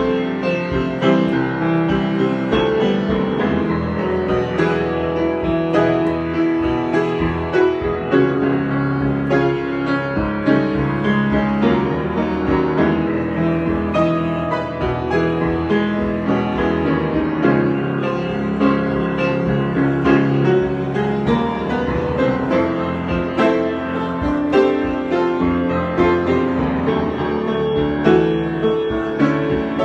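Solo piano improvisation, notes played continuously over held chords.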